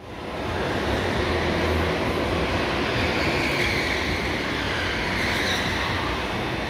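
Go-kart running on track: a steady, dense engine and rushing noise that fades in over the first half second.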